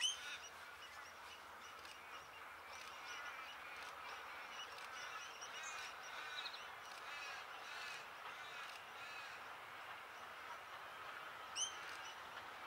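Wild birds calling in a busy chorus of short chirps and warbles, with two louder calls standing out, one right at the start and one near the end.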